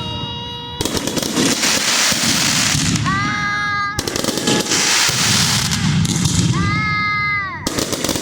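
Fireworks going off in a dense, continuous crackle of bangs. Twice, a whistle of about a second rises over the crackle and drops in pitch just as it cuts off.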